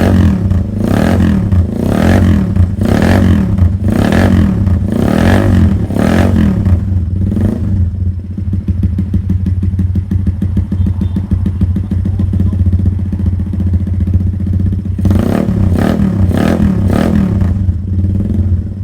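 MotorStar Z200 motorcycle engine with an aftermarket McMufflers exhaust, idling and being blipped: about seven quick throttle revs in a row, each about a second apart, then a steady idle, then three more quick revs before it settles back to idle.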